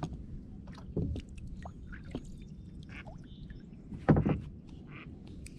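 Knocks and taps of a paddle and fishing gear against a plastic kayak hull, with a smaller thump about a second in and a louder thump about four seconds in.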